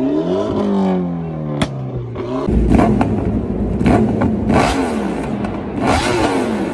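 A car engine revving, its pitch sweeping up and down about once a second. About two and a half seconds in, a loud, noisy intro sound effect cuts in, with sharp surges and falling sweeps.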